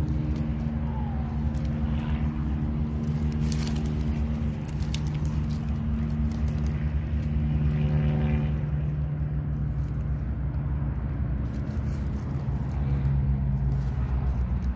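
A steady low engine-like hum, with a few light crackles of dry bamboo leaves and twigs as termite mushrooms are pulled by hand from the leaf litter, around two and four seconds in.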